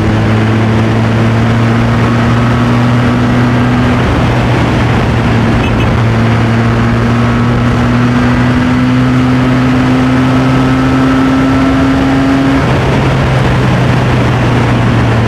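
Motorcycle engine running under way, its pitch climbing slowly as it gathers speed, breaking off about four seconds in and again near the end, over a steady rush of wind noise.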